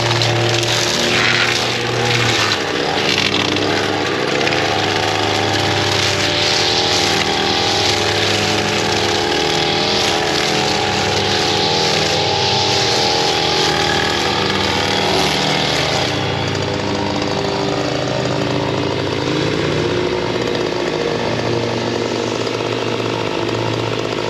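Small gasoline engine of lawn equipment running steadily under load while cutting grass. The higher, hissing part of the sound eases about two-thirds of the way in.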